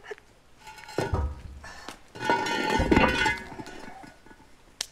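Heavy metal manhole cover being lifted out of its frame and set aside: a clank with metallic ringing about a second in, then a louder grating scrape of metal on its rim and the cobbles, ringing as it goes, fading out by about four seconds in.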